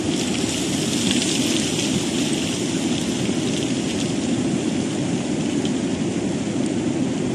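Floodwater rushing past in a steady, unbroken torrent of noise.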